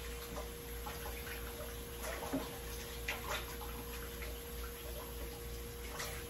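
Kitchen sink tap running while hands are washed under it, with scattered splashes. A faint steady hum sits underneath.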